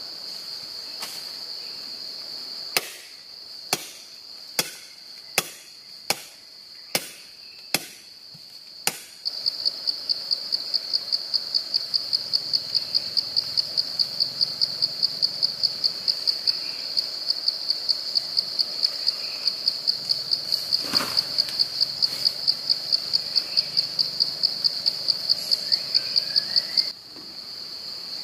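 Firewood chopped by hand: about eight sharp strokes less than a second apart, a few seconds in, over a steady high insect drone. From about nine seconds the insects switch to a loud, rhythmic pulsing chirp, about three pulses a second, which stops abruptly near the end; one more stroke comes about two-thirds of the way through.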